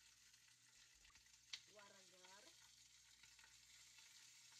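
Near silence: a faint steady hiss with a low hum, one sharp click about a second and a half in, and a brief faint voice just after.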